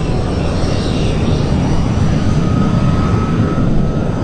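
Jet Provost's single Viper turbojet running at taxi power, a loud steady rush of jet exhaust with a thin high whine. A fainter steady whine comes in about halfway through.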